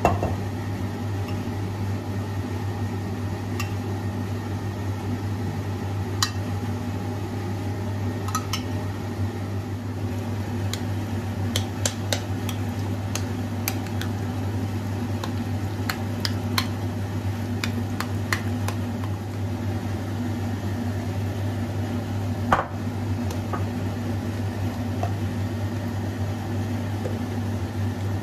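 A steady low hum, like a running household appliance, with scattered light clicks and clinks of dishes or utensils being handled; one sharper click comes about two-thirds of the way through.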